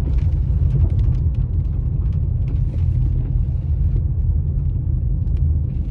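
Steady low rumble of a car driving slowly, heard from inside the cabin: engine and tyre noise on the road.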